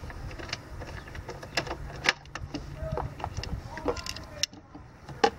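Hand tools and metal parts clicking and clinking irregularly as the fuel-filter bracket's 10 mm bolts are undone and the bracket is pulled off an outboard engine, with two sharper clinks about two seconds in and just before the end.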